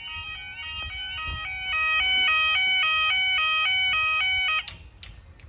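British level crossing two-tone yodel alarm, rapidly alternating between two pitches to warn that the barriers are lowering for a train. It cuts off suddenly near the end.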